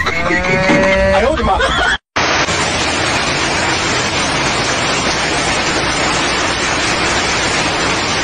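A cow mooing with its head raised, a pitched call that breaks off suddenly about two seconds in. After a brief gap, a steady loud hiss of heavy rain takes over.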